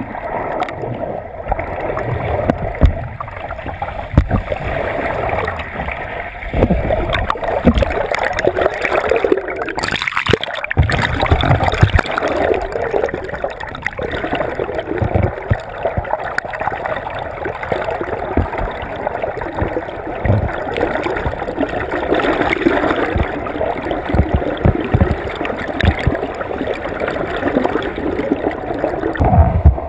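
Churning, gurgling sea water and bubbles swirling in a whirlpool vortex, heard with the microphone underwater, with irregular low thumps throughout.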